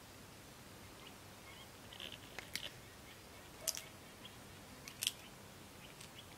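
A few faint, short, crisp crunches and clicks from a young vervet monkey feeding on pieces of butternut and pawpaw in dry grass. They come mostly in the middle, about five in all, over a quiet background.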